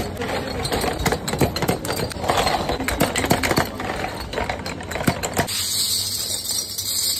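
Rapid metallic clicks of crown caps being levered off glass soft-drink bottles one after another with a bottle opener. About five and a half seconds in this gives way to a shower of loose metal bottle caps jingling as handfuls are dropped onto a pile.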